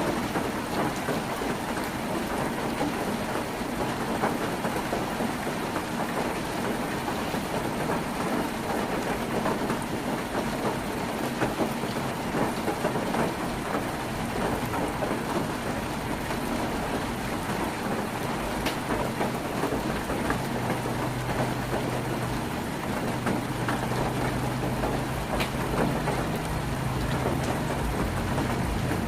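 Heavy rain falling on a tin roof: a dense, steady patter with scattered sharper drop hits. About twenty seconds in, a low steady hum joins underneath.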